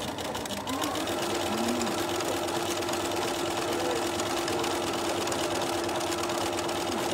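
Bernina B 335 domestic sewing machine stitching at a steady speed, its motor starting up about a second in and then running evenly.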